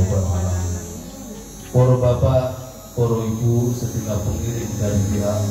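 Loud, steady mains hum from a PA sound system. From about two seconds in, a man's voice comes through the microphone and loudspeakers in short stretches.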